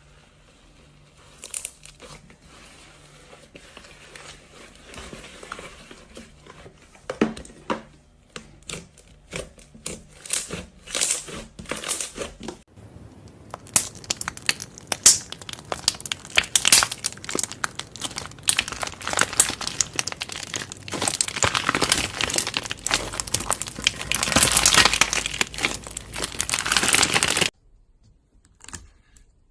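Slime being pressed, stretched and squished by hand, giving off a stream of fine crackling and popping clicks. The clicks are sparse for the first dozen seconds, then come thick and fast until they stop abruptly near the end.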